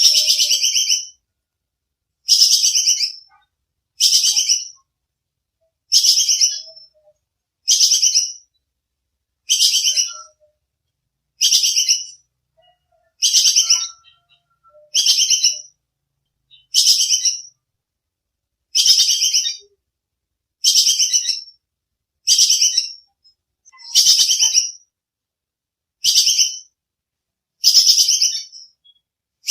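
Tupai kekes squirrel's sharp, high-pitched chattering call: a short rapid trill repeated about every two seconds, with silence between calls.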